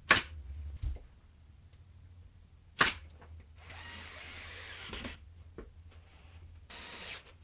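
Two sharp cracks about three seconds apart from a pneumatic nail gun firing into the cabinet, followed by a steady hiss of about a second and a half and a second, shorter hiss near the end.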